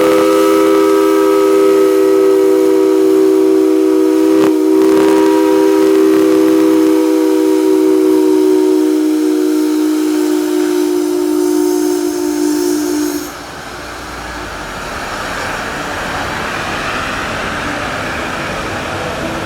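Steam locomotive's chime whistle sounding one long blast of several notes together, sagging slightly in pitch before cutting off about 13 seconds in. A steady hiss follows.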